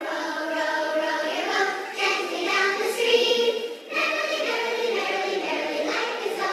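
Background music with a choir of voices singing.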